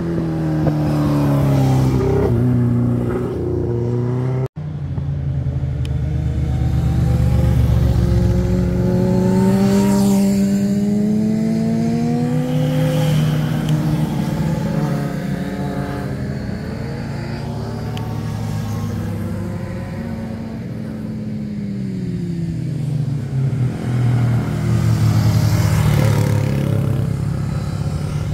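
Motorcycle engines passing on a winding road, the engine note falling and rising repeatedly as the bikes slow for and accelerate out of hairpin bends, with a brief cut in the sound about four seconds in.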